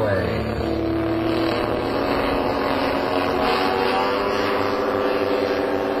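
Engines of a large radio-controlled model bomber running in flight, a steady drone whose pitch bends up and down a few seconds in.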